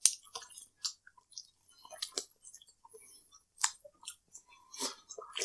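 Close-miked chewing and eating of chicken wings: scattered short wet clicks, smacks and crunches of a mouth working on food.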